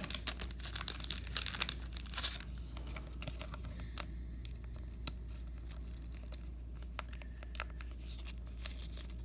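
Clear plastic card sleeve crinkling as a thick baseball relic card is handled and slid into it, crackling densely for the first two seconds or so, then with only scattered small crinkles.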